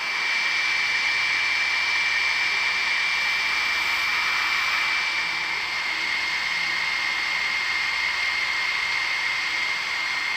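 Stand mixer running on high with its wire whisk beating mayonnaise in a stainless steel bowl: a steady motor whine over a hiss, the whine dropping slightly in pitch about halfway as oil is worked into the egg yolks.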